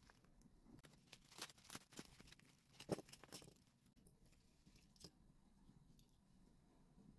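Quiet handling sounds: socks and plastic wrapping rustling, then a run of light clicks and taps as plastic pens are set down on a cloth-covered table, the sharpest about three seconds in, and one more tap about five seconds in.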